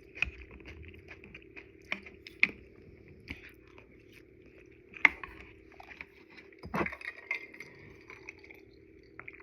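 A person chewing udon noodles close to the microphone: wet mouth clicks and smacks, with a few sharper clicks about two and a half and five seconds in and a longer, louder stretch of mouth sound near the seven-second mark.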